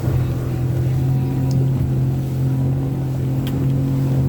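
Motorboat engine running steadily under way, a constant low drone with wind and water noise over it.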